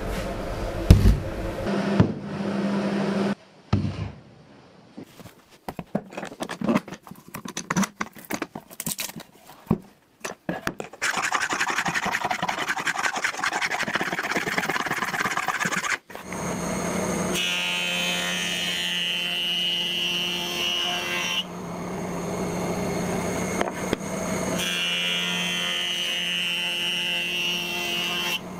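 Sash clamps knocking as a glued-up panel is clamped, then a quick rasping rub over the wood for a few seconds. From about halfway through, a jointer (surface planer) runs with a steady hum, and its cutterhead bites with a hiss twice as a board is pushed across it.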